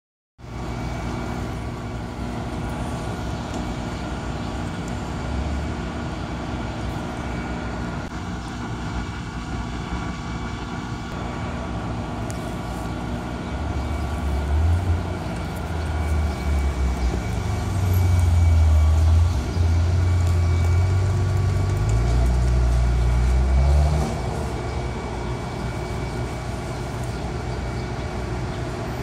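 Maserati Levante SQ4's twin-turbo V6 idling, then revved several times about halfway through, each rev held briefly as a loud deep exhaust drone, before dropping back to a steady idle.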